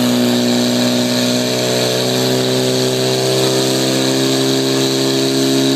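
Portable fire pump engine running steadily at high load, pushing water through the attack hoses.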